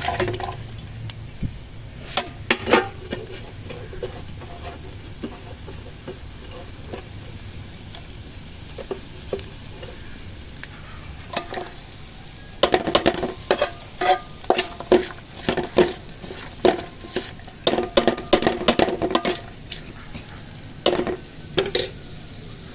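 Spatula stirring and scraping chopped greens in a kadai over a steady oil sizzle. Scattered strokes at first, then a busy run of rapid stirring strokes past the middle, and a few more near the end.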